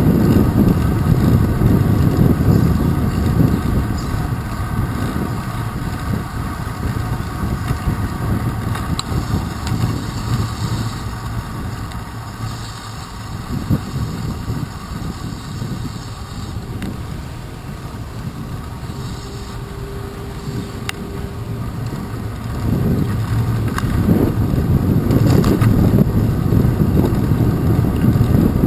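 Wind buffeting and road rumble picked up by a handlebar-mounted GoPro Hero 2 on a bicycle riding over wet pavement: a steady low rumbling noise. It eases off in the middle and builds again in the last few seconds.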